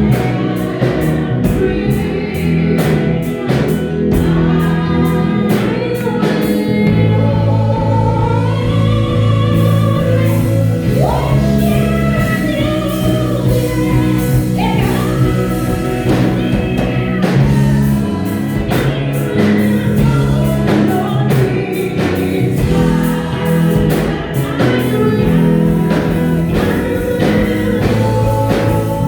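Gospel worship music: a choir and singers over bass, keyboard and a steady drum beat.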